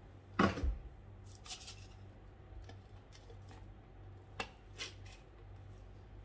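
Scattered knocks and rustles of kitchen items being handled and set down on a counter, the loudest about half a second in, over a steady low hum.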